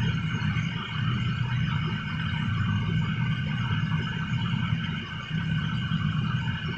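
Steady drone of ventilation fans in an aircraft paint shop: a low hum with a steady higher whine over it, unchanging throughout.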